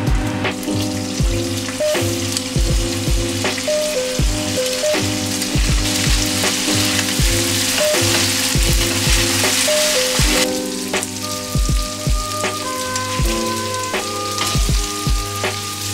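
Garlic shrimp and spaghetti sizzling in oil in a cast-iron skillet as they are tossed with chopsticks. The sizzle is strongest midway and drops off about ten seconds in. Background music with a steady beat plays throughout.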